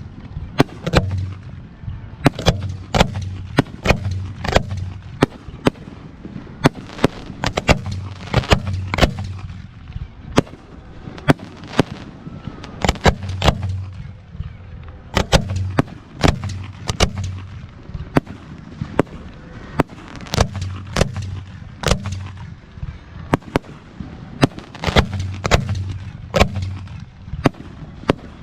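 Aerial fireworks bursting in a continuous barrage: an irregular string of sharp bangs, dozens in all, some close together, over deep booms that rumble underneath.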